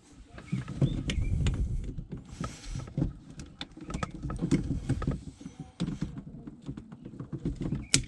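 Wire cutters being worked onto the wires at the back of an RV electrical outlet: handling rustle and small clicks, then one sharp snip near the end as the wires are cut.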